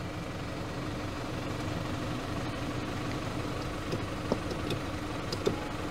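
Electric power-seat motor in a Toyota Land Cruiser Prado driver's seat running steadily as it raises the front edge of the seat cushion, with a couple of light clicks near the end.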